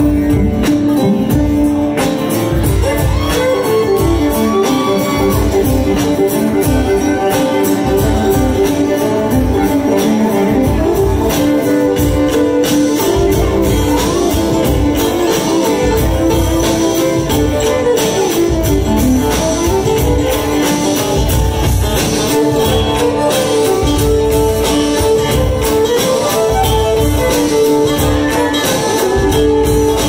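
Live bluegrass–hip-hop band playing an instrumental passage: bowed fiddle leading over strummed acoustic guitar and a steady bass-heavy beat.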